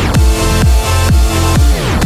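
Electronic dance music with heavy bass and a kick drum about twice a second.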